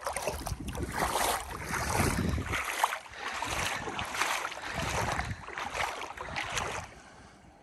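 Feet wading through shallow loch water, splashing in an uneven run of steps, with wind buffeting the microphone. The splashing dies away near the end.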